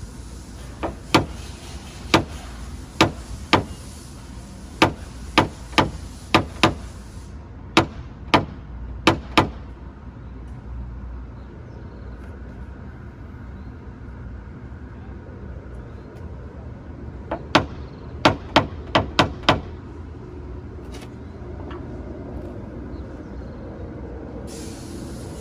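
Sharp taps of a paintless-dent-repair tool on the car's sheet-metal body panel, knocking down high spots: a run of about fourteen irregular taps, a pause, then about seven quicker taps.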